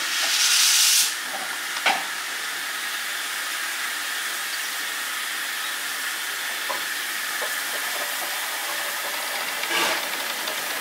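Steam hissing steadily from LMS Jubilee class steam locomotive 45690 Leander, with a louder burst of hiss in the first second and a single sharp click about two seconds in.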